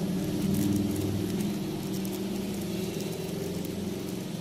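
A steady low hum like a running motor, loudest in the first second, with faint light crinkling of a thin plastic bag being handled.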